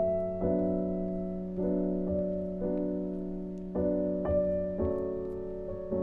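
Gentle background piano music: chords struck about once a second, each left to ring and fade.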